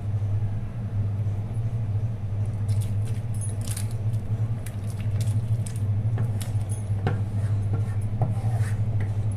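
Pot of rice and water at a boil, with a steady low hum underneath, while a wooden spatula scrapes and knocks against the pot a number of times as cooked chicken is added and worked in.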